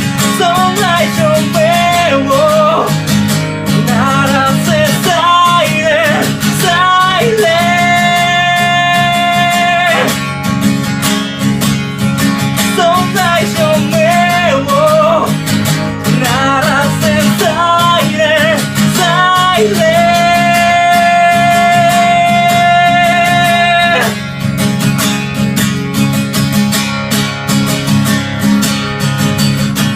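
Acoustic guitar played with a solo voice singing over it, holding two long notes about eight and twenty seconds in. The singing stops about 24 seconds in, and the guitar plays on alone.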